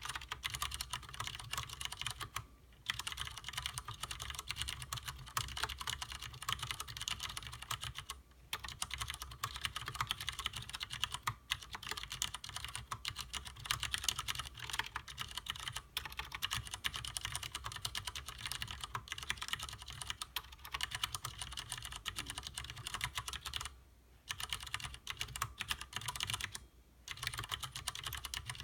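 Continuous fast typing on a Leopold FC750R mechanical keyboard with Cherry MX Clear tactile, non-clicky switches: a dense run of keystrokes, broken by a few short pauses.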